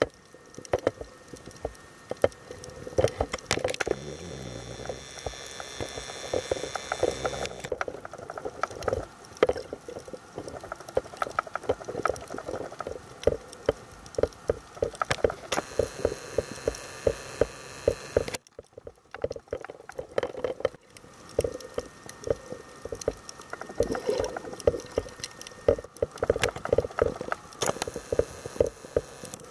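Underwater sound picked up by a submerged camera: dense, irregular crackling and clicking, with a faint steady whine between about four and seven seconds in and a couple of quieter seconds about two-thirds of the way through.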